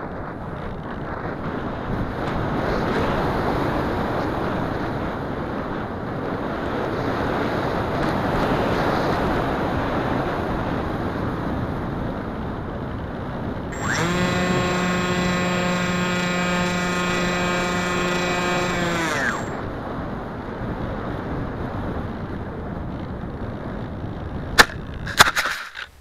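Wind rushing over the onboard keychain camera of a Wing Wing Z84 flying wing in flight, with the plane's uprated FunFighter electric motor and propeller running at steady throttle for about five seconds midway, its pitch sagging as it is cut. Near the end, two sharp knocks as the plane touches down in grass.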